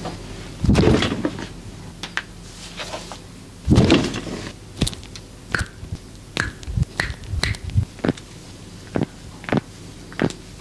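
Body joints being cracked by a masseur. Two heavier cracking thumps come about a second in and near four seconds, then a string of short, sharp pops and clicks.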